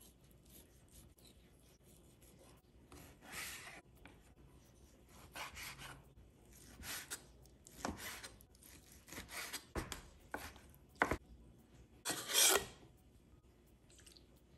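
A wide kitchen knife scraping and chopping through raw salmon on a cutting board, first separating the fillet from its skin, then dicing the flesh. Irregular scraping strokes come a second or two apart, with a couple of dull knocks of the blade on the board and one longer, louder scrape near the end.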